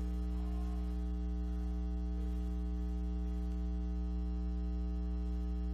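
Steady electrical mains hum, a low buzz with several fainter steady tones above it, unchanging throughout.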